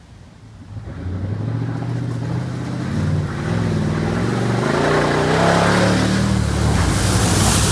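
A full-size 4x4's engine revving through a muddy trail, rising and falling in pitch and getting louder as it approaches. Near the end comes a loud rush of splashing mud and water as it ploughs through a puddle.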